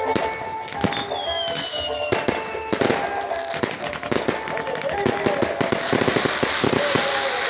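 Fireworks display: dense rapid crackling bangs, thickest in the second half, with a falling whistle about a second in, over background music.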